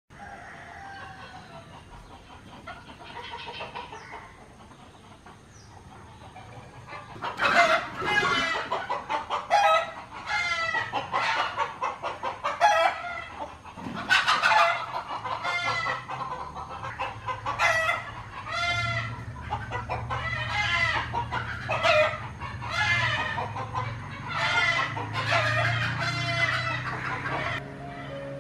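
Chickens calling: loud, repeated clucks and cackles about once a second from about seven seconds in, after quieter calls at the start. A low steady hum runs under the second half.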